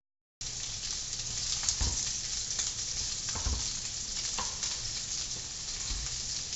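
Sausage and red onion frying in olive oil, a steady sizzle, with a few soft knocks. The sound drops out for a moment at the very start.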